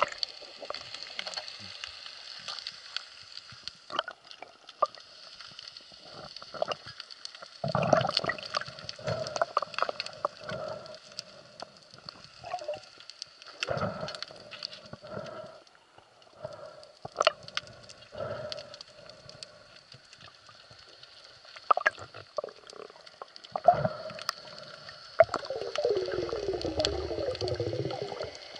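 Underwater sound picked up by a diver's camera: a steady faint hiss and hum of water with scattered short knocks and clicks from the spearfishing gear. Near the end comes a longer, louder churning rumble of water being stirred.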